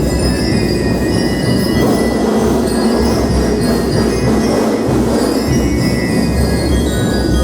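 Marching war band playing: steady dense drumming with bell lyres ringing over it. The bell lyres thin out for a few seconds in the middle while the drums carry on.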